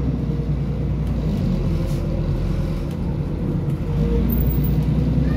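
A bus's diesel engine and road rumble, heard from inside the passenger saloon while it drives. The engine eases off at the start and pulls harder again about four seconds in.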